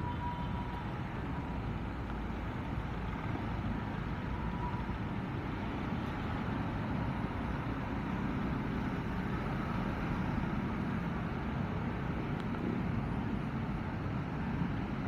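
Motor scooter's engine running at low speed in slow, dense city traffic, blended with steady road and traffic noise.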